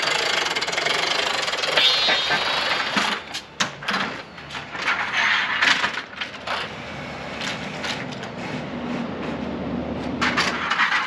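A newly installed manual RV awning being pulled out by hand: its metal arms and roller rattle, clack and click as the fabric unrolls. The clacks come thickest a few seconds in and again near the end.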